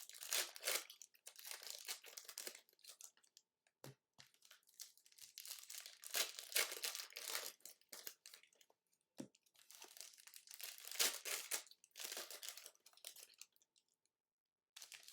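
Trading card packs being torn open and their wrappers crinkling, with cards being handled, in irregular bursts. There are two short knocks, about 4 and 9 seconds in.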